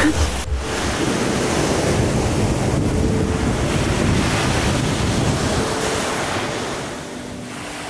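Small sea waves breaking and washing up a sandy beach: a steady rush of surf that eases off near the end.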